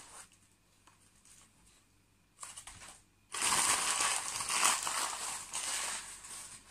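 Crumpled newspaper packing being gathered up and crushed by hand, with a short rustle about two and a half seconds in, then about three seconds of loud crumpling.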